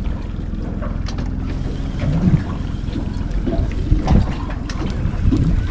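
Wind on the microphone over a low steady rumble aboard a small boat at sea, with a few light knocks.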